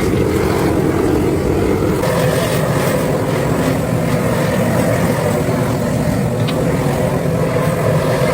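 A motor running steadily and loudly, a continuous drone whose pitch shifts slightly about two seconds in.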